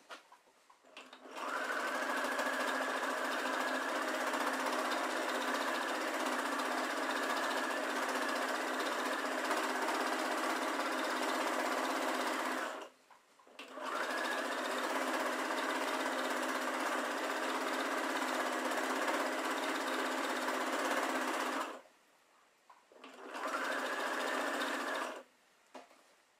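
Computerised domestic sewing machine stitching through a layered quilt, running in three spells with short stops between: a long run of about eleven seconds, another of about eight, and a short burst of two seconds near the end.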